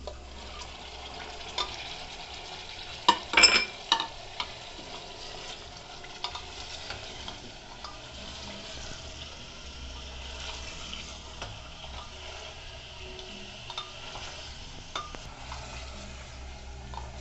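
Cauliflower florets going into an aluminium pressure cooker of cooking mutton, with a cluster of loud knocks about three seconds in, then a wooden spoon stirring and scraping in the pot with scattered clicks over a steady sizzle.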